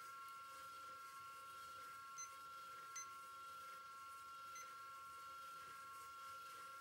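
Digital kitchen timer beeping three times as its buttons are pressed, twice to set two minutes and once to start the countdown, over a faint steady hum.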